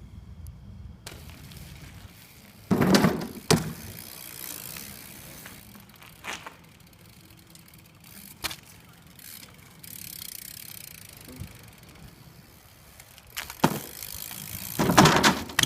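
A BMX bike being handled and ridden: a faint rolling hiss, broken by several sharp knocks and clatters of the bike's frame and parts. The loudest come about three seconds in and near the end.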